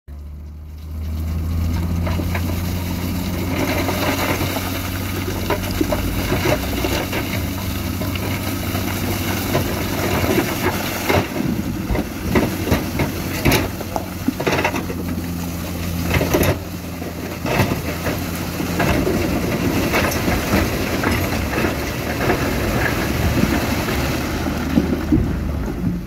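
Heavy diesel machinery running steadily, with repeated sharp knocks and clatter of rock being tipped and pushed. The engine sound starts about a second in.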